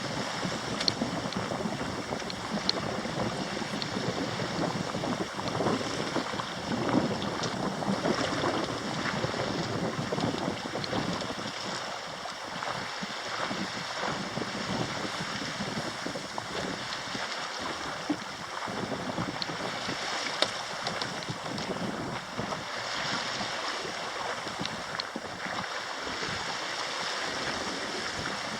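Water rushing and splashing along the hull of a sailing yacht under way, with wind on the microphone.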